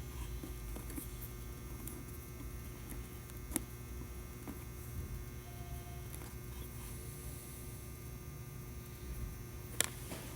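Steady low electrical hum, with two short sharp clicks: one about three and a half seconds in and one near the end.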